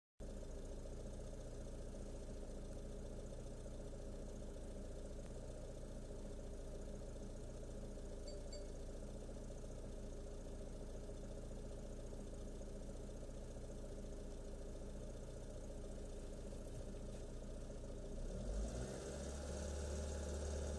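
BYD F3 engine idling steadily; about eighteen seconds in the electric radiator cooling fan switches on, adding a rushing whir and a deeper hum, and the overall sound gets louder.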